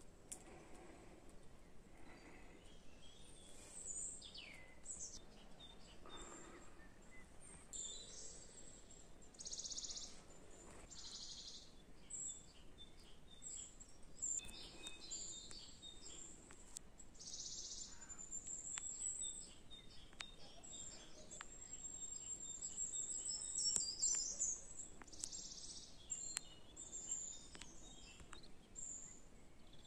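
Small songbirds singing: many short high chirps and trills with a few buzzy notes, the loudest a trill about 24 seconds in.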